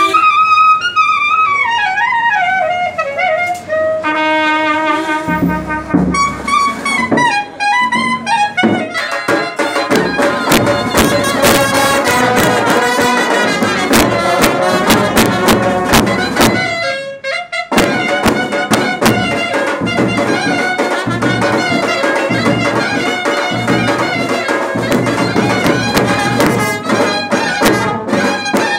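Brass band playing: a lone wind melody at first, then held notes, and from about nine seconds in the full band with drums beating steadily. The band stops briefly about seventeen seconds in, then picks up again.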